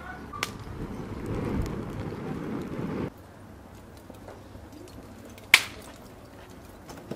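Charcoal fire in a metal grill catching from burning kindling: a low rushing noise that builds and then cuts off suddenly about three seconds in. A single sharp crack follows about two seconds later.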